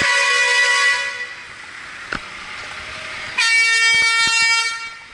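Vehicle horn sounding two long blasts, the second about three seconds after the first.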